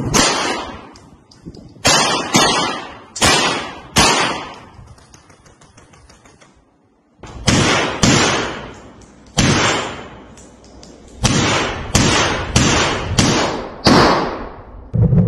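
AK-47-type rifle mounted on a robot dog firing single shots: about a dozen sharp cracks at uneven spacing, each ringing out and fading over about a second, with a pause of about three seconds midway.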